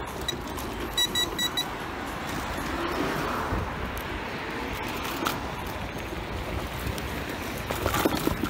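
A short electronic beep, then a quick run of four high beeps about a second in, heard over steady street-traffic noise.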